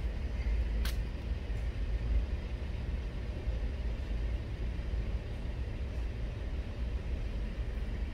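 Steady low rumble of urban background noise, with one faint sharp click about a second in.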